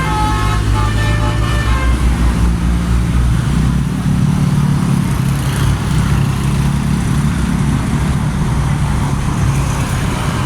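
A bus's musical 'telolet' horn plays a short tune of shifting tones and stops about two seconds in. The bus engine rumbles loud and steady throughout.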